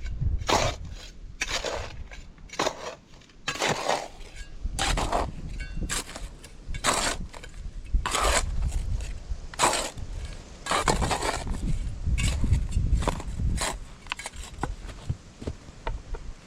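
Irregular crunching and scraping noises, roughly one a second, over a low rumble of wind on the microphone.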